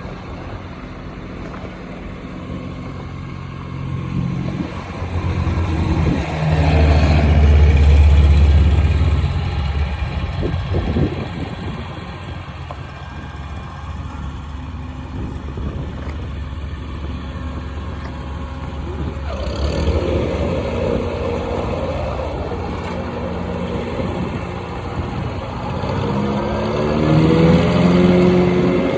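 Kubota front-mount riding mower's engine running. It gets louder for a few seconds about a quarter of the way in, then revs up with a rising pitch near the end.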